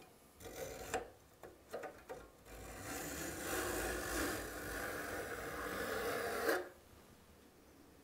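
A flat file in a saw jointer drawn along the tops of a hand saw's steel teeth with light pressure, jointing the teeth to one height before sharpening: a few short filing strokes, then one long steady stroke of about four seconds.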